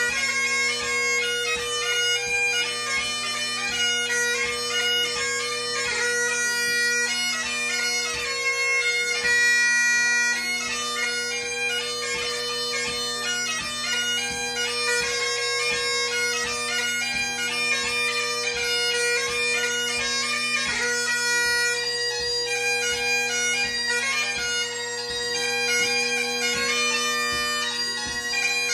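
Great Highland bagpipe played solo: the drones hold a steady, unbroken tone under a chanter melody full of quick grace notes.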